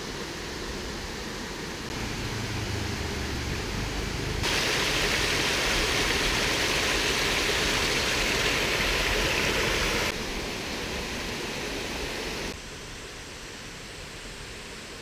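A small waterfall splashing over rocks into a shallow stream: a steady rush of water that starts abruptly about four seconds in and cuts off about ten seconds in. A quieter steady hiss comes before and after it.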